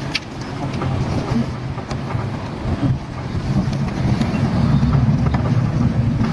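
A vehicle or machine engine running steadily, growing louder about halfway through, with a few sharp clicks and knocks.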